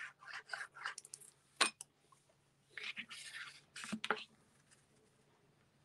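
Adhesive tape runner drawn in short scratchy strokes along the edge of a card-stock panel, with a couple of sharp clicks, then the soft rustle of the card stock being handled and turned over.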